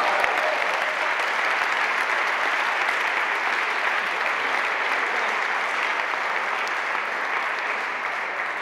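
Audience applauding a won point in a table tennis match: steady clapping that eases off slightly toward the end.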